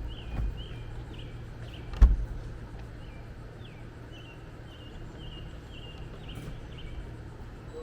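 A bird chirping over and over in short, quick notes above a steady low rumble of outdoor background noise. A sharp knock about two seconds in is the loudest sound, with a smaller bump just before it.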